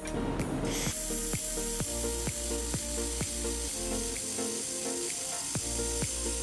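Background music with a steady beat, about two beats a second, over a steady high hiss from a 1500 W handheld fiber laser welder welding stainless steel plate; the hiss starts about a second in.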